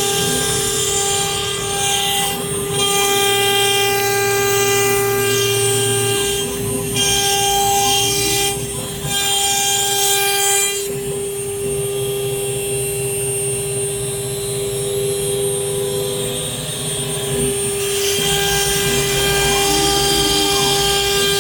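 CNC router spindle running with a steady high whine while its cutter machines a wooden door, the rasping cutting noise strong at first, easing off about halfway through and coming back near the end.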